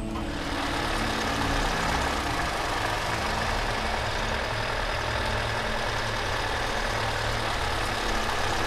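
Toyota Dyna truck's engine running steadily, a constant low rumble with a noisy wash over it.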